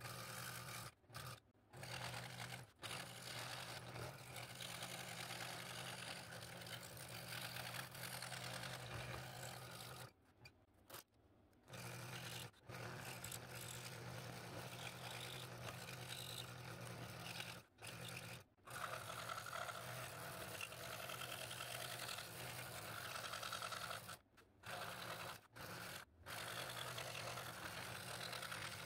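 Scroll saw running, its blade going up and down through a taped stack of mahogany, black limba and ash. A steady hum with a rasping cutting noise over it, which cuts out abruptly for a moment several times.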